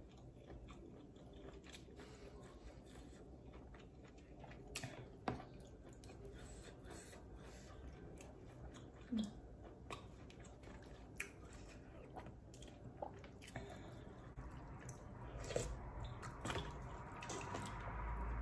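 Chewing and biting on duck meat and noodles close to the microphone, with scattered clicks of a metal spoon and fork. Near the end, a louder hiss as the spoon stirs and scoops through the broth.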